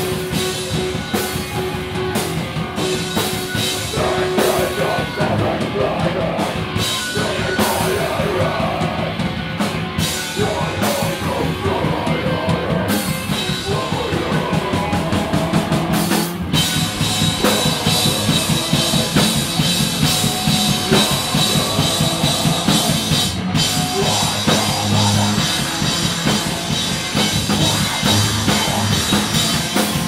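A live rock band playing loudly: a drum kit beating steadily under electric guitar, heard from among the audience in a small club.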